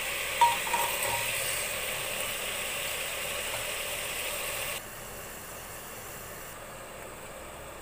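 Mutton shank pieces sizzling as they brown in hot oil in a steel pressure cooker, with a couple of clinks of a metal ladle against the pot near the start. The sizzle drops suddenly to a quieter hiss about five seconds in.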